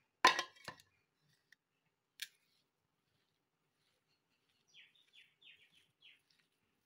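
Two sharp knocks against a steel mixing bowl just after the start, the first the loudest, and a lighter tick about two seconds in. Later, about five seconds in, a quick run of six or so short, falling chirps from a small bird.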